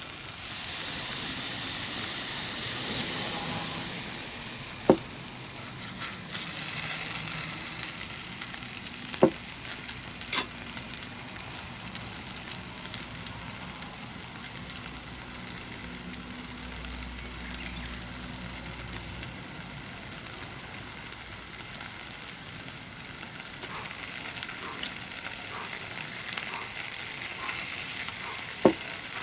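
Food sizzling as it fries over a campfire, louder in the first few seconds and then settling to a steady sizzle, with a few sharp pops.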